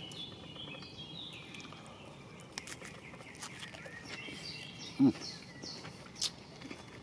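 Small birds chirping and singing in the background, with a few faint clicks and one short low thump about five seconds in.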